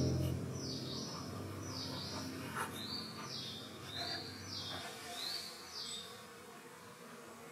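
A songbird repeating short, high whistled notes that slide downward, about eight of them over six seconds. The tail of background music dies away in the first seconds.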